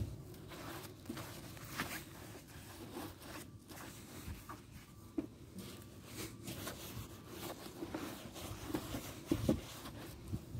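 Soapy sponge scrubbing the plastic body panels of a scooter, a series of short, irregular rubbing strokes.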